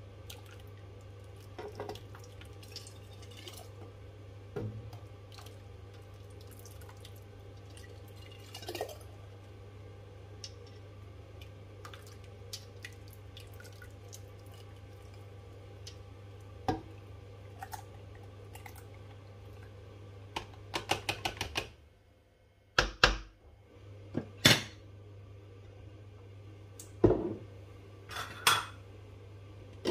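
A ladle scraping and knocking against a large stainless steel pot as thick, hot chilli relish is scooped out and poured through a funnel into a glass jar, with scattered clinks and wet pouring sounds. Several louder knocks come in the last third, over a steady low hum.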